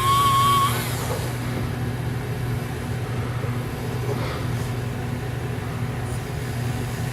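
Electric graver-sharpening machine running with a steady low motor hum. A high, steady whine from the graver held against the spinning polishing wheel cuts off just under a second in with a short rising squeak as the tool is lifted away, leaving only the motor hum.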